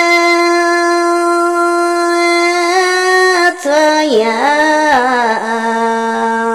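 A woman singing a Red Dao lượn folk song unaccompanied: one long held note for nearly three seconds, then a step up, a brief break, and a lower line with sliding, wavering turns.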